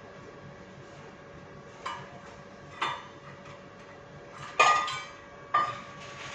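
Four sharp metallic clinks, each ringing briefly, like metal dishes or utensils knocking together; the third is the loudest.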